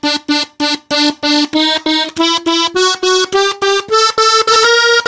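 Diatonic button accordion in G played slowly on its treble buttons. Quick short repeated notes come about five a second, stepping gradually upward in pitch and then dropping back a little near the end.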